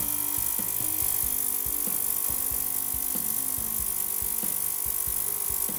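Benchtop ultrasonic cleaner running with a brass clock movement plate in its bath, giving a steady high hiss.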